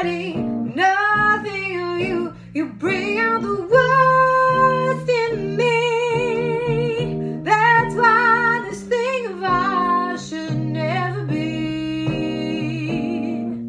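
A woman singing a slow melody in long held notes with vibrato, over sustained chords from her own accompaniment.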